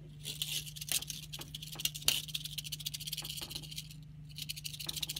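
The rattle of a dead, road-killed rattlesnake shaken by hand, giving a fast, dry buzz with a short break about four seconds in. It is fainter than a live snake's rattle, which is really loud. A steady low hum runs underneath.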